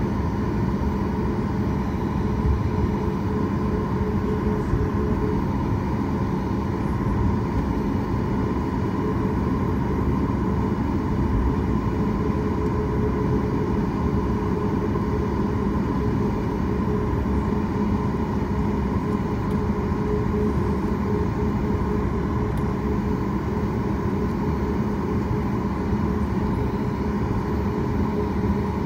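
Steady cabin noise inside a Boeing 737 MAX taxiing, its CFM LEAP-1B engines running at low power: an even hum with several held tones over a low rumble.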